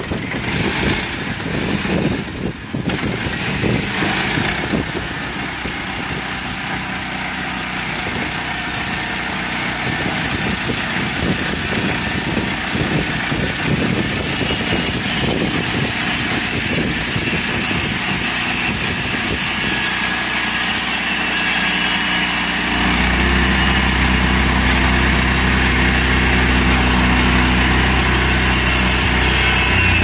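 14 HP Kohler engine running a portable band sawmill as the saw head is pushed along its track. About three-quarters of the way through, the sound turns deeper and heavier as the band blade enters the log and begins cutting.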